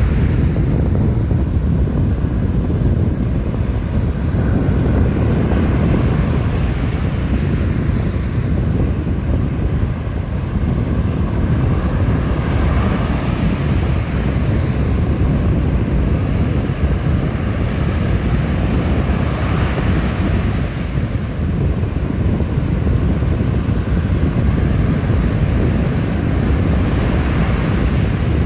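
Strong wind blowing across the microphone: a loud, steady rumble that swells and eases every few seconds.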